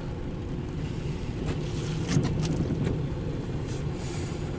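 Steady low engine hum, with a few faint clicks in the middle.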